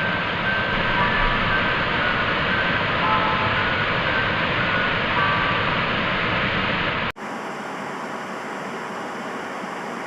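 Steady loud rushing noise with faint short beeping tones at a few pitches, cutting off abruptly about seven seconds in to a quieter, even static hiss.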